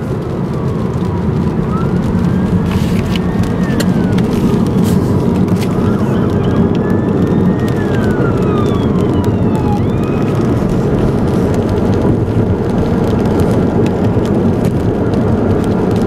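Fire truck siren wailing in slow rises and falls as it passes, fading out about ten seconds in, heard from inside a moving car over steady road rumble and tyre noise, with occasional sharp ticks.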